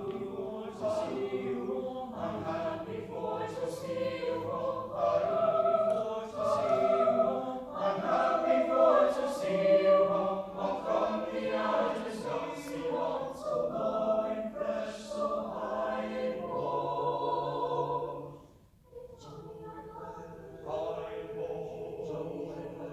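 Mixed choir singing together, growing louder toward the middle, then breaking off briefly about three-quarters of the way through and coming back in more softly.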